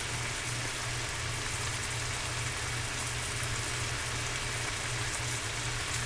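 Chicken breast tenders sizzling steadily in a pan on high heat as their released juices cook off, with a low steady hum underneath.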